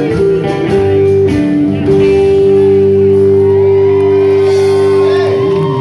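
Live rock band, with several electric and acoustic guitars over drums, playing the last bars of a song. About two seconds in the band lands on one long held chord, which starts to break up near the end as the song finishes.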